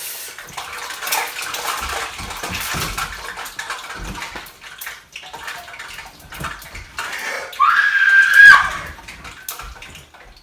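Battered Oreos sizzling in hot deep-frying oil, a steady crackle with sharp pops throughout. About eight seconds in comes a brief high-pitched squeal that rises and holds, the loudest sound.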